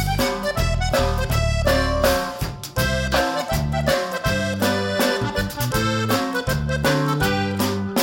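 Upbeat instrumental music: a free-reed melody over a bass line that steps to a new note about every half second.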